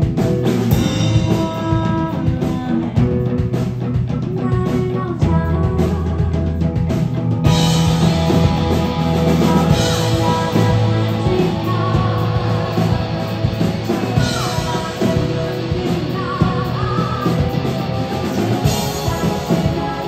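Live rock band playing: electric guitar, keyboard and drum kit, with a singer's voice over them. About seven and a half seconds in the band comes in fuller, with cymbals.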